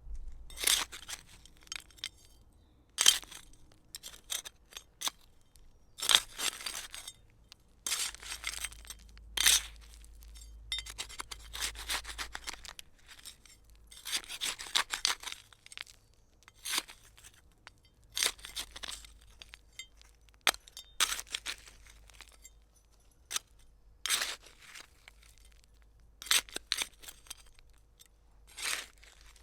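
Hand trowel digging into gritty soil: repeated short scrapes and scoops with soil and small stones clinking against the blade, irregularly spaced with short pauses between strokes.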